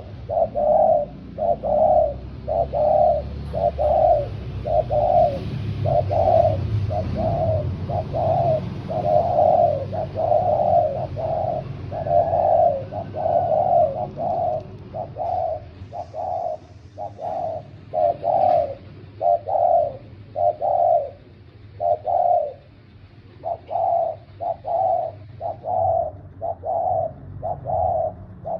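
Spotted doves cooing back and forth, a steady run of soft, repeated coo notes with uneven spacing.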